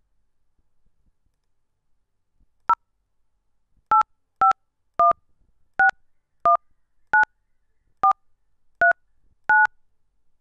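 Ten short DTMF keypad tones from an Xten softphone as the number 0851619439 is dialed, each beep a two-tone chord. One beep comes alone, then after a pause the other nine follow at an uneven pace, roughly one every two-thirds of a second.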